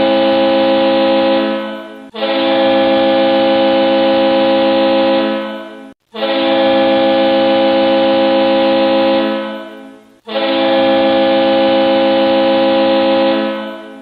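Hockey goal horn sounding in long blasts: one blast fading out in the first two seconds, then three more of about three and a half seconds each, separated by short gaps. Each blast is a loud, steady, many-toned blare.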